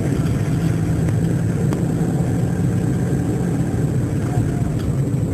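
A car driving: a steady low rumble of engine and road noise, with a few faint ticks.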